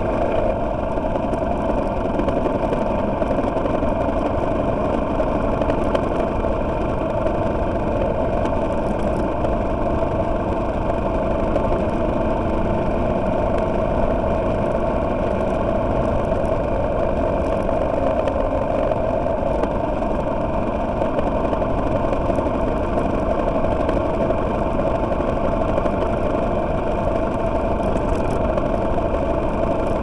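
Motorcycle engine, freshly overhauled, running steadily under way, heard from the bike with steady wind and road noise.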